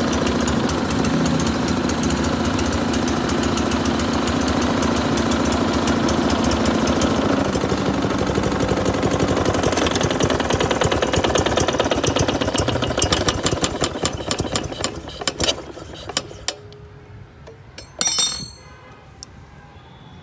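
Small four-stroke petrol engine running steadily with a fast, even firing beat, then shut off: it stutters and dies away between about 13 and 16 seconds in. A brief sharp sound near the end.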